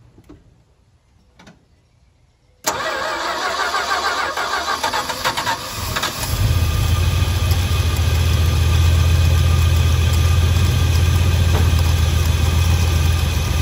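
1969 Dodge D200 pickup engine with a Carter AFB four-barrel carburetor, started on the key. The starter cranks unevenly for about three seconds, then the engine catches about six seconds in and settles into a steady idle. Its loose alternator belt has just been tightened.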